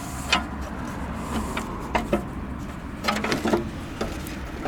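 Several sharp clicks and knocks of a part being handled and fitted by hand, about five in all with a small cluster near the end, over a low steady rumble.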